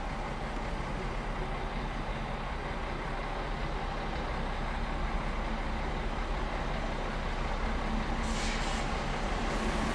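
ICE high-speed train running in the station: a steady low rumble that slowly grows louder, with two short hisses of air about eight seconds in.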